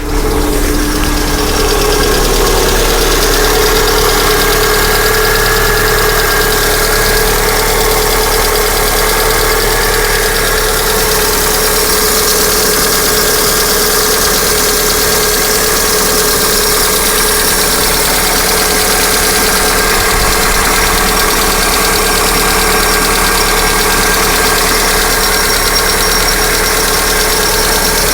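Lada Vesta 1.6-litre engine idling steadily with a fast, even ticking knock from its valvetrain: the sign of failing hydraulic valve lifters (lash adjusters).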